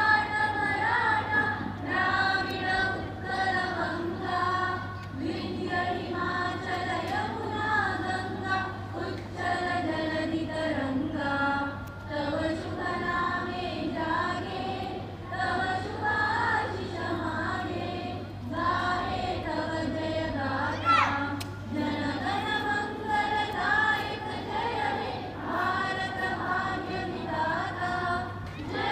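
Crowd of women chanting protest slogans in unison, in short rhythmic repeated phrases, over a steady low electrical hum.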